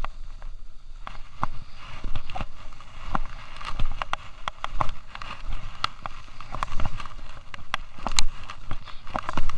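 Skis running down a packed snow trail, with irregular clicks and knocks over a steady hiss, and a low wind rumble on the microphone.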